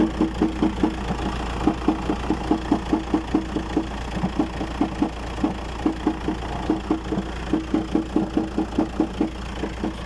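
Volkswagen Transporter T5 engine idling cold, with a hard, regular knock repeating a few times a second and briefly dropping out now and then. The knock comes only while the engine is cold and stops once it warms up; a service shop put it down to the van's age and called it nothing serious.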